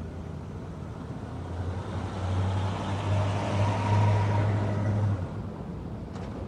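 A motor vehicle passing on a street. Its low engine drone and tyre hiss swell to a peak about four seconds in, then drop away. A brief click comes near the end.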